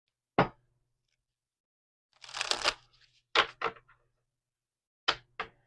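Tarot cards being handled: a short rustle of shuffling about two seconds in, with single sharp snaps of cards before it and pairs of snaps after it.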